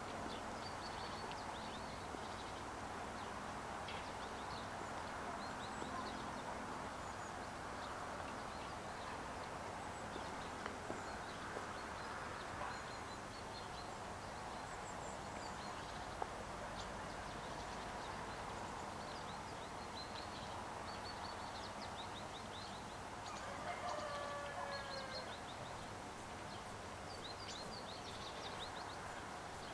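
Quiet outdoor ambience: a steady distant hum with birds chirping faintly now and then, and a brief wavering animal call about 24 seconds in.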